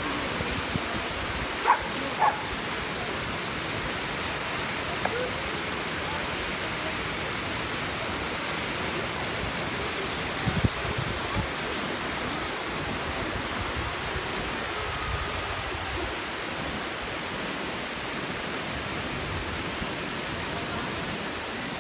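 Steady rushing of river rapids and a waterfall: an even hiss of white water, with two brief sharp sounds about two seconds in.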